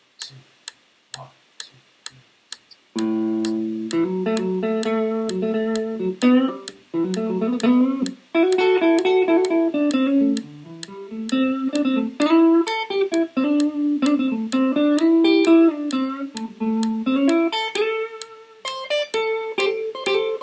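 A metronome clicking at about 130 bpm, then about three seconds in an electric guitar starts a lead solo with string bends over the continuing clicks.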